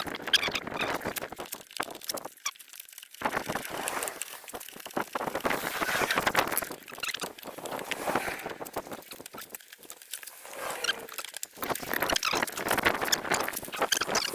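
Irregular clicks, knocks and scraping of hand work on the rear suspension parts of a pit bike being greased and refitted.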